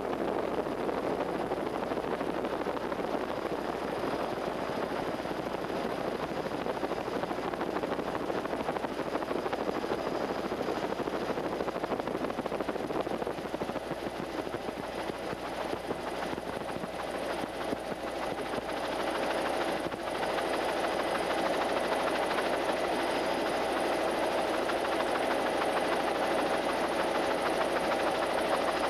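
Steady engine drone of the aircraft filming the flood damage, heard from inside the aircraft. It gets a little louder, with a stronger hum, about two-thirds of the way through.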